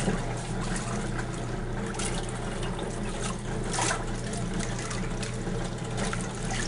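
1935 Maytag Model 30WP wringer washer agitating a load in rinse water: water sloshing and splashing in the tub over the machine's steady hum, with a louder splash about four seconds in.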